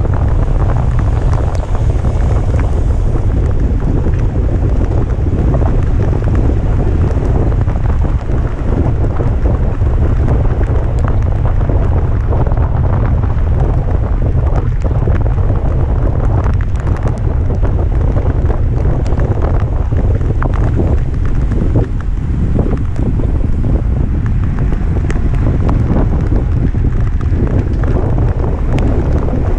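Heavy wind buffeting the microphone of a racing cyclist's camera at speed: a loud, steady low rumble that hardly changes, with scattered faint ticks over it.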